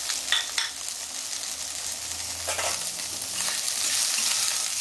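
Chopped onion sizzling in hot mustard oil in a kadai, a steady frying hiss, stirred with a flat spatula that scrapes and knocks against the pan a few times.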